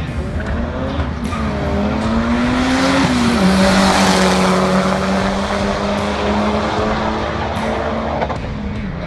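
A car engine running hard, its pitch rising and then dropping about three seconds in before holding steady.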